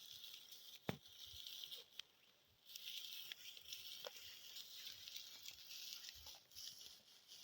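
Near silence: a faint steady high hiss with a few soft clicks, the hiss dropping out for a moment about two seconds in.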